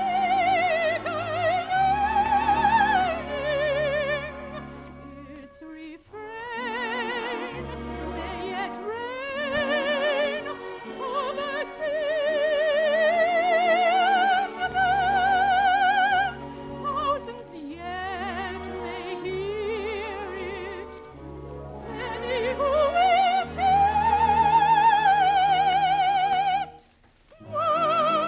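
Operatic soprano singing an operetta song in long held notes with heavy vibrato, over orchestral accompaniment. There is a short breath pause about five and a half seconds in, and a brief drop near the end.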